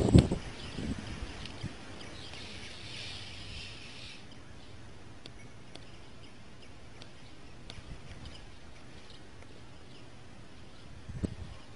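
Quiet outdoor background with faint bird chirps. A couple of short sharp handling sounds come in the first second, and a soft high hiss runs from about two to four seconds in.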